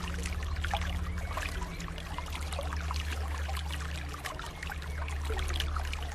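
Steady trickling, splashing water like a small stream, over soft sustained low music notes.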